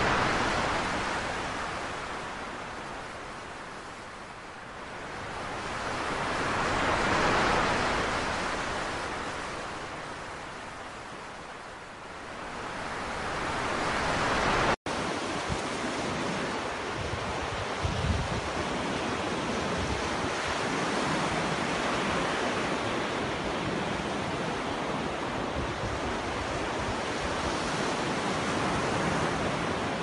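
Ocean surf: breaking waves rush and fade, swelling about every seven seconds. After a sudden cut about halfway through, a steadier wash of smaller waves on the shore takes over.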